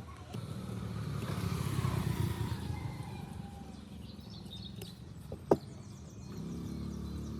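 A motor vehicle passing by, its engine noise swelling and fading over about three seconds with a slightly falling pitch. A single sharp knock follows about five and a half seconds in.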